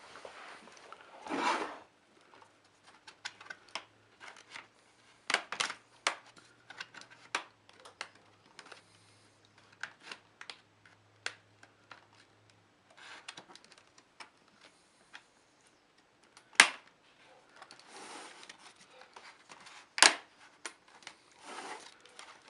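Plastic clicks, taps and scraping of a laptop being taken apart by hand: case parts and clips handled and snapped loose, with two louder sharp snaps in the second half.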